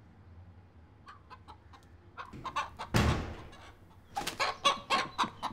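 Rooster clucking: a few faint clucks, then a quick run of short clucks from about four seconds in. A brief noisy burst comes just before the run, about three seconds in.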